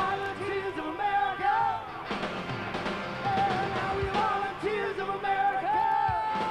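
Live rock band playing with electric guitars and drums while vocalists sing, one voice holding a long note near the end.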